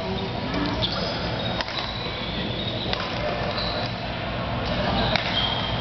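Badminton rackets hitting a shuttlecock in a doubles rally: four sharp hits a second or two apart, with short high squeaks of shoes on the court floor and a murmur of voices echoing in the sports hall.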